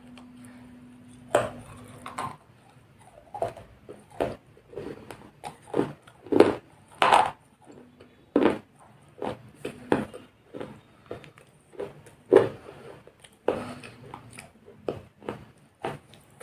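Irregular knocks and clatters, one or two a second and uneven in loudness, like objects being handled and set down, over a faint low steady hum that comes and goes.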